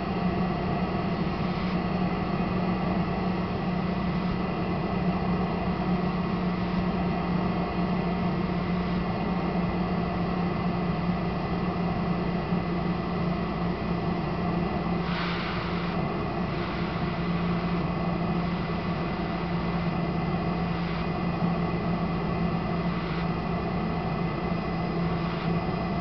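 Dräger Savina ventilator running, its turbine blower giving a steady hum and whine, with a brief hiss about fifteen seconds in.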